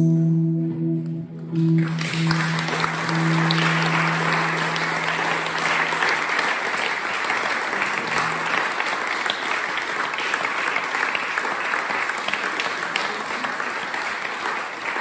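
An audience applauding, starting about two seconds in and going on steadily, while the electric guitars' last chord rings out underneath and fades away over several seconds.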